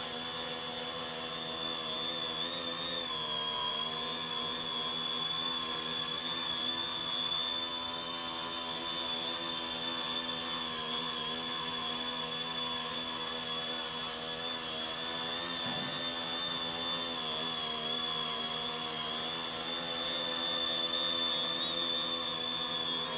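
HobbyKing X900 tricopter's electric motors and propellers whining steadily as it hovers and drifts, the pitch wavering slightly as the throttle is worked, with a thin steady high tone over it.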